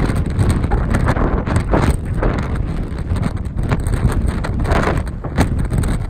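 Strong, gusty wind buffeting the microphone: a loud low rumble that swells and eases with each gust.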